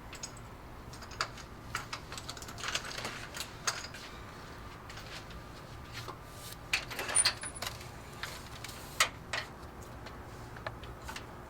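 Irregular light clicks and small rattles of hard objects being handled, with a burst of clatter about seven seconds in, over a faint steady low hum.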